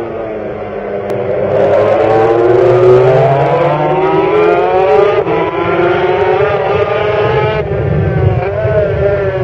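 Racing motorcycle engine at high revs at race speed, its pitch climbing and falling with throttle and gear changes. The sound changes abruptly about a second and a half in, again about five seconds in, and once more near the end.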